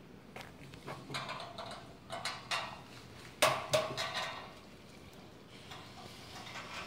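Steel basketball rim and its mounting bracket clinking and knocking against the backboard panel as it is handled and set in position: about eight short metallic knocks with a brief ring, the two loudest close together about halfway through.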